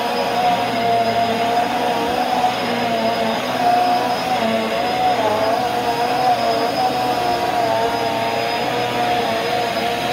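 Bissell bagless upright vacuum cleaner running while it is pushed over carpet: a steady motor whine with a rush of air, its pitch wavering slightly as the cleaner moves back and forth.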